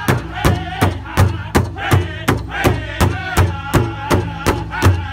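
Powwow drum group: several drummers striking a big drum in a steady beat of nearly three strokes a second, while the group sings in unison over it.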